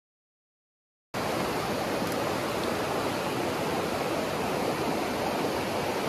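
Total silence for about a second, then the sound cuts in suddenly: the steady rushing of a rocky mountain stream's rapids.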